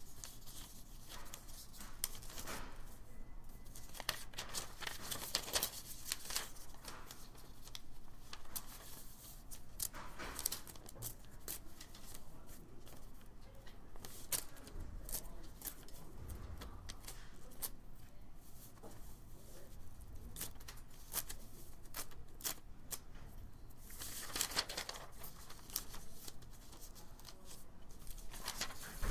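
Hands laying newspaper strips dipped in watered-down white glue onto a paper mache mask and smoothing them flat: faint, irregular wet-paper rustling with small clicks and scratchy swishes.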